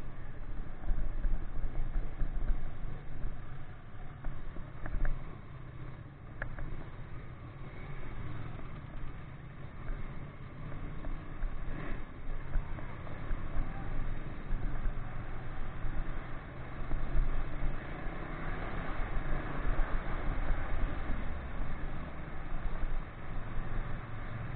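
Ducati 959 Panigale's Superquadro V-twin engine running as the bike is ridden through traffic, a fluctuating low rumble mixed with wind and road noise, heard dull through the bike-mounted camera's microphone.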